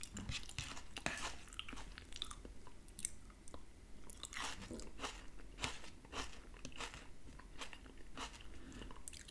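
Close-miked chewing of baked salmon and onions: a run of short, soft clicks from the mouth, with a fork now and then scraping the plate.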